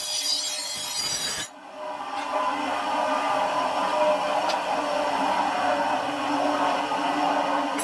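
Bench grinder wheel grinding a leaf-spring steel knife blade, a bright hiss that cuts off suddenly about a second and a half in. Then a wooden stick is held against the spinning grinding wheel, giving a steady, lower rubbing sound.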